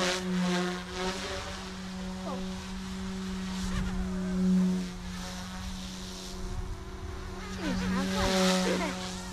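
OMP Hobby M2 Explore electric RC helicopter in flight: a steady rotor and motor hum that swells as it comes closer about four and a half seconds in and again near the end.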